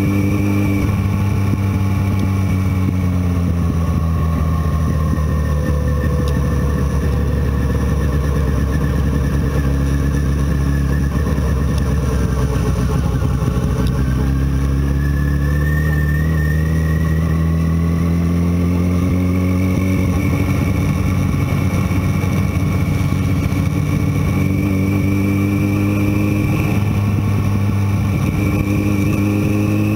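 Motorcycle engine running at road speed. Its pitch sinks slowly as it slows over the first half, then climbs again as it accelerates, and rises once more near the end.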